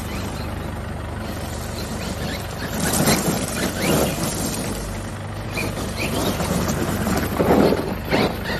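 Monster truck's engine running steadily, with a few short louder bursts, about three seconds in, a second later, and again near the end.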